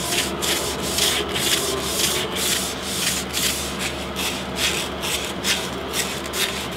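Wooden whip handle with a polyurethane finish being hand-sanded with 220-grit sandpaper in quick back-and-forth strokes, about two to three a second. The sanding scuffs the finish rough so the plait will grip.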